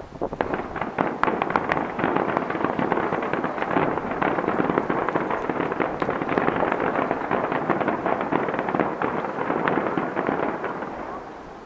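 Aerial fireworks shells bursting in a rapid finale barrage, a dense, continuous crackle that dies away near the end.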